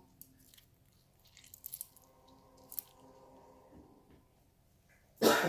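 A few faint small clicks and handling sounds, then near the end a sudden loud cough from a person with a cough in the background.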